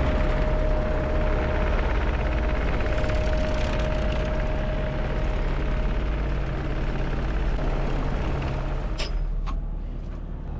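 CAT 304 mini excavator's diesel engine running steadily, with a thin whine over it through the first half. There is a sharp knock near the end, after which the sound quiets.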